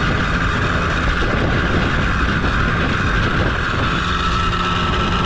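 A 50cc motorbike engine running hard up a steep climb: a steady high whine that sags slightly in pitch as it works, over a heavy rumble.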